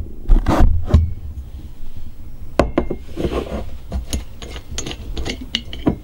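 Handling noise: a few loud knocks in the first second, then a string of small clicks and rubbing, as a plastic bottle of apple cider vinegar is handled at a washing machine's open detergent drawer.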